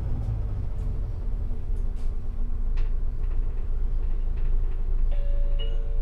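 Cabin sound of an Isuzu Erga city bus's diesel engine and drivetrain running as the bus moves slowly: a heavy low rumble with road noise. About five seconds in, a two-note chime starts, falling from the first note to the second.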